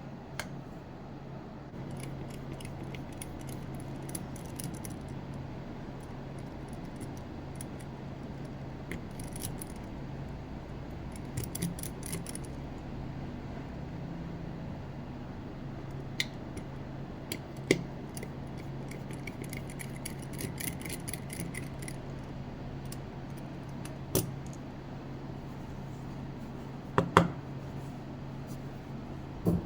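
Scattered small clicks, taps and short scrapes of a tool working on the plastic case of a Bushnell Phantom golf GPS as its cover is taken off, over a steady low hum. A few sharper clicks come in the second half, the loudest two close together near the end.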